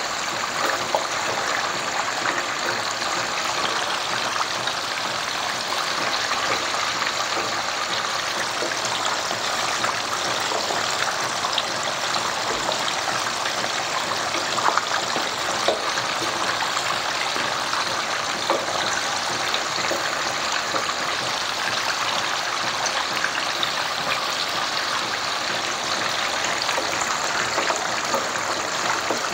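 Turmeric gravy with fish heads bubbling steadily in a wok on the boil, with a few light knocks and scrapes of a wooden spatula stirring it.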